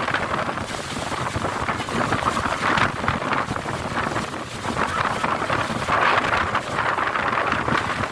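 Strong gusting wind blowing hard across the microphone, rising and falling in surges every second or two.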